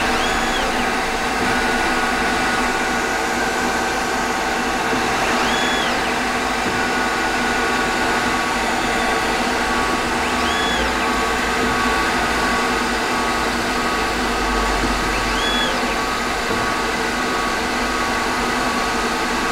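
Emco Compact 5 PC CNC lathe running a program: a steady machine hum with several constant tones from the spindle drive, while the NEMA 23 stepper motors whine up in pitch, hold, and fall back about every five seconds as the carriage makes rapid moves.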